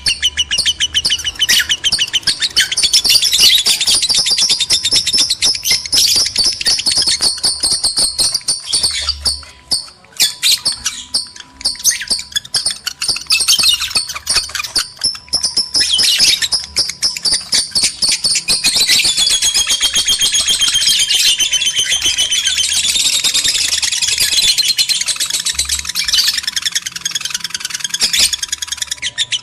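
Lovebirds chattering nonstop in rapid, high-pitched twittering, with long wavering warbles in the second half: the mating calls of male and female lovebirds in breeding condition.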